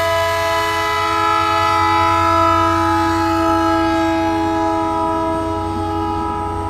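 Diesel locomotive's multi-tone air horn held in one long unbroken blast over the low rumble of the passing train; it eases off a little in the second half.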